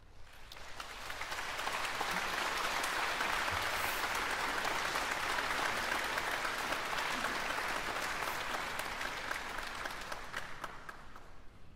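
Concert-hall audience applauding, swelling over the first couple of seconds and dying away near the end.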